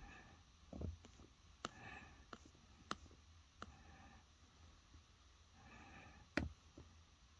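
Near silence broken by a few light clicks and taps, the loudest about six seconds in, from a finger tapping the touchscreen of a smartphone and handling the phone.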